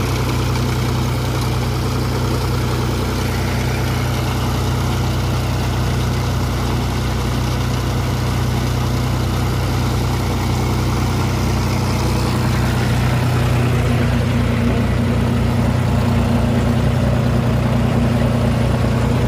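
John Deere 5055E turbo three-cylinder diesel tractor engine running steadily while powering a pipeline trench-digging machine: an even hum with no knocks or rattles, a little louder over the last few seconds.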